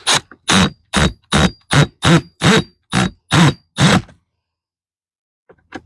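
Screw being driven into wood in short, even strokes, about two and a half a second, each a brief scraping grind. They stop about four seconds in.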